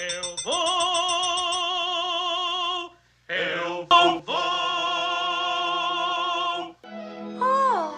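Operatic singing voice holding two long notes with a strong vibrato, separated by a brief break about three seconds in. Near the end the pitch slides downward.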